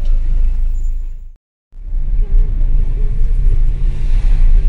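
Car driving through city streets, heard from inside the cabin as a steady low rumble of road and engine noise. It drops out to silence for a moment about a second and a half in.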